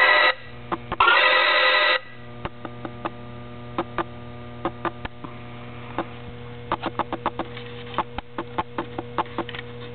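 Electronic sound unit of a Star Trek: Generations Engineering toy playset: two loud electronic tones of about a second each in the first two seconds, then a steady low electronic hum. Many small plastic clicks are scattered over the hum as the set is handled and its console buttons are touched.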